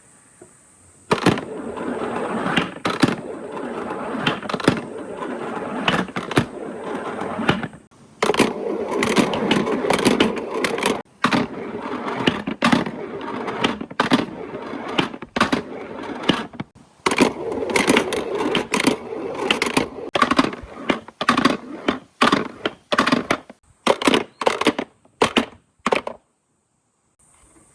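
Marbles rolling down a marble run's slopes: a continuous rolling rumble with frequent sharp clicks as they knock against the track. Near the end the rolling gives way to scattered clicks and then stops.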